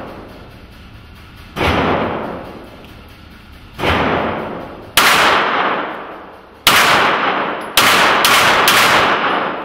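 Pistol shots at a range, seven in all, each with a long echoing decay. The first four are spaced a second or two apart, then three come in quick succession near the end.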